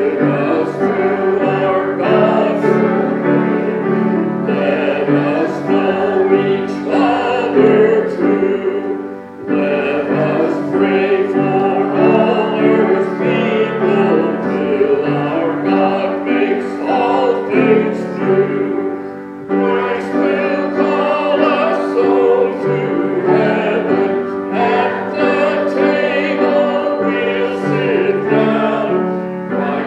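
A group of voices singing with piano accompaniment, in long phrases with brief pauses between them.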